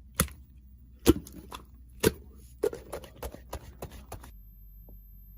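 Computer keyboard clicks: three single keystrokes about a second apart, then a quicker run of about six, stopping a little past four seconds in.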